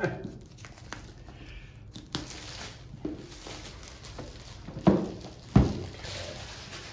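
Handling of a boxed board game and its packaging: light rustling and small clicks, with two sharp knocks a little before and just after the five-second mark.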